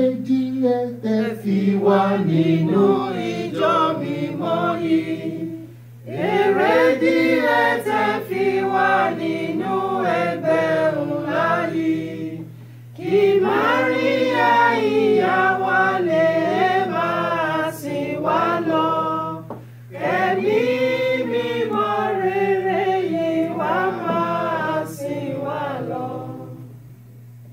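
Church chorus sung unaccompanied by several voices, in four phrases of about six seconds each with brief breaks, dying away near the end, over a steady low hum.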